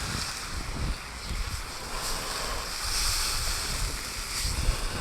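Wind buffeting the microphone in irregular low gusts over a steady high hiss from pancetta sizzling on a disc over an open wood fire.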